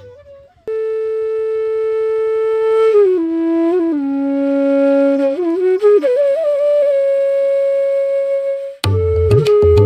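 Background music: a flute playing a slow melody of long held notes, stepping and sliding between pitches, with drums entering near the end.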